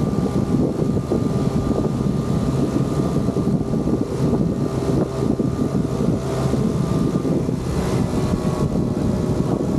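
Work boat machinery running steadily: a continuous low engine drone with a thin steady whine above it that fades out about seven seconds in.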